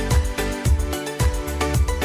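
Background music with a steady beat: a low drum thump about twice a second under held instrumental notes.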